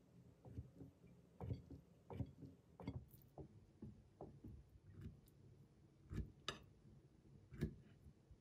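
Irregular light clicks and knocks, a few a second, from small objects being handled. The sharpest come about six seconds in and again near the end.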